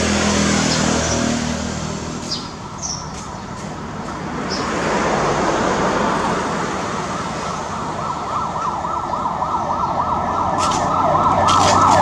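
A siren with a fast, rapidly repeating rise-and-fall, growing louder from about halfway through, over a background hum of traffic. A few short high chirps come in the first half.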